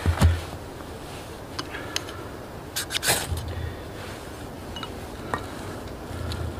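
A knock at the start, then a knife's spine scraped down a ferrocerium rod to throw sparks onto a pile of wood shavings: a few short scrapes and clicks, one longer, harder scrape about three seconds in, and a few light clicks after.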